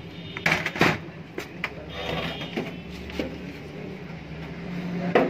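Metal knocks and clanks as a refrigerator compressor's internal motor-and-pump assembly is handled and set down on a metal workbench, with two loud knocks about half a second and just under a second in and another near the end, over a steady low hum.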